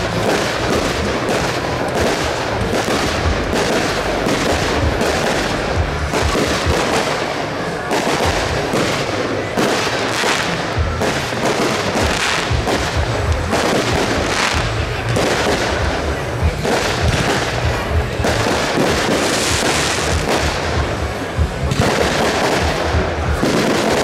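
Fireworks display: shells bursting in quick succession, a dense run of bangs and crackles with hardly a gap.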